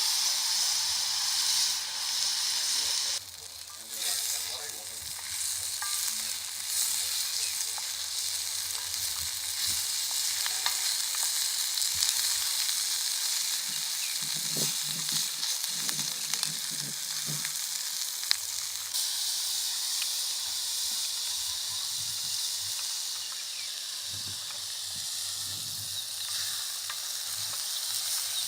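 Food frying and sizzling in hot fat: a steady hiss with scattered fine crackles, dipping briefly a few seconds in.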